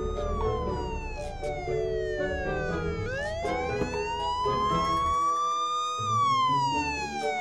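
Fire station alarm siren wailing in slow sweeps, its pitch sliding down, then up, then down again over about three seconds each, over background music.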